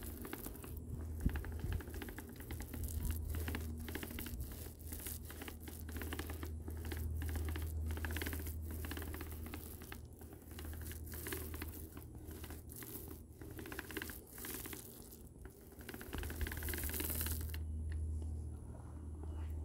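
A small paint roller rolling white paint onto rough textured stucco, an irregular scratchy noise that swells and fades with the strokes, over a steady low hum.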